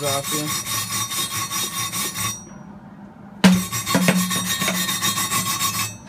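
Hand wire brush scrubbing slag off a flux-core weld bead on steel plate, in fast, even back-and-forth strokes. The brushing pauses for about a second partway through, starts again sharply, and stops just before the end.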